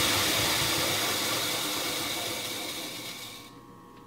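Three-phase grinder-polisher with a buffing wheel and a wire brush wheel coasting down after being switched off from its first test run. Its whirring hiss and hum fade steadily and die out about three and a half seconds in.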